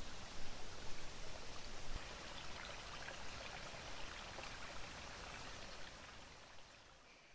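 Running water, a steady splashing hiss flecked with small drips, fading away near the end.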